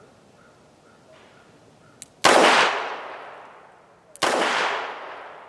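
Two shots from a Charter Arms Undercover .38 Special snub-nose revolver, about two seconds apart, each ringing off over about a second and a half. A faint click comes just before each shot.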